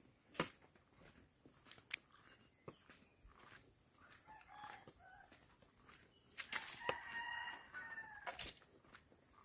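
A rooster crowing once, a long call of about a second and a half near the end, with a few footsteps on the trail.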